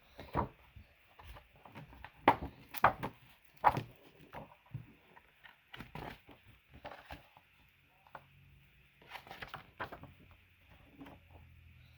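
A picture book being handled and its pages turned: irregular clicks, knocks and paper rustles, some sharp and loud, over a faint steady hiss.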